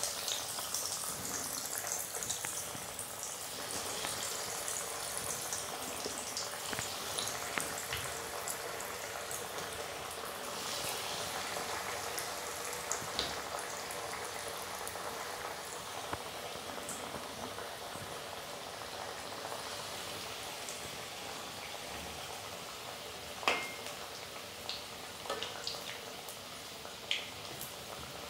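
Breaded potato-and-bread snacks deep-frying in hot oil in a steel kadhai: a steady sizzle and bubbling with scattered crackles. A few light clicks near the end.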